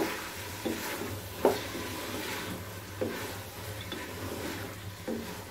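Wooden spoon stirring chana dal and chopped fenugreek leaves in an aluminium pressure-cooker pot, scraping and knocking against the metal about four times, over a low sizzle of the dal frying in oil.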